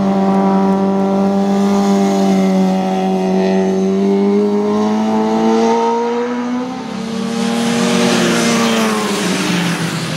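Racing motorcycle engine held at high, nearly steady revs, its pitch creeping slowly upward. About seven seconds in the pitch shifts and a rushing noise swells as a bike goes by.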